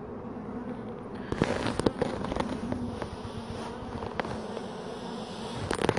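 Honeybees buzzing over an open hive in a steady hum, with scattered sharp clicks and knocks, the loudest clustered about a second and a half in and again near the end.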